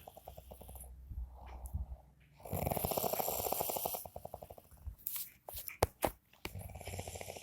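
Snoring: one loud, rattling snore begins about two and a half seconds in and lasts about a second and a half, with quieter breathing before it and another snore starting near the end. A few short clicks come in between.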